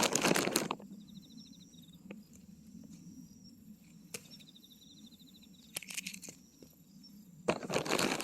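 Rustling and crackling of leaves and twigs, with a few sharp snaps, in three bursts. A small bird gives a short, fast high trill twice in between.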